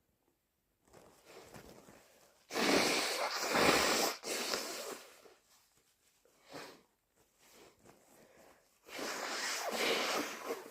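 A person with a cold blowing their nose hard twice, each blow about a second and a half long, with short fainter sniffs and breaths in between.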